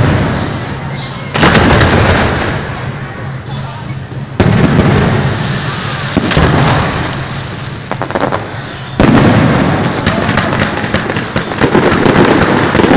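Fireworks display: three loud sudden bursts of aerial shells, about one and a half, four and a half and nine seconds in, each dying away slowly. The last is followed by a fast run of sharp crackling pops.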